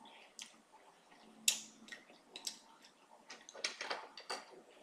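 Knife and fork clicking and scraping against a plate as a ribeye steak is cut. Faint scattered ticks, with a sharper click about a second and a half in and a quick run of clicks near the end.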